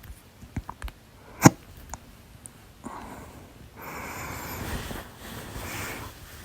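A person's hiccup, a single very short, sharp sound about a second and a half in, followed by about three seconds of breathing.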